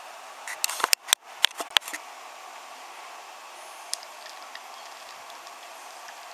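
Wooden toy train being handled and pushed along wooden track: a cluster of sharp clicks and knocks in the first two seconds, then a few faint ticks, over a steady hiss.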